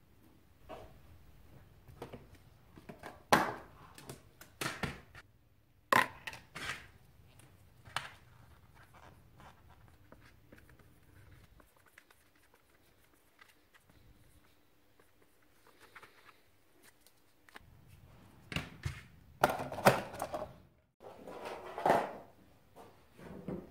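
Scattered clicks, taps and knocks of gloved hands working with small parts and tools on a workbench: a valve core tool at the shock reservoir's Schrader valve, then a plastic parts tub handled and set down, with a quiet stretch in the middle and a denser run of louder knocks near the end.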